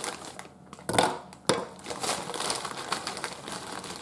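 Frozen broccoli florets being dropped by hand into an air fryer basket: crinkling and rustling, with two sharp knocks about a second in and half a second later.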